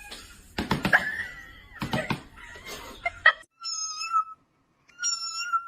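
Knocks and clatter, then two short, high cries of nearly steady pitch about a second apart: a cat mewing.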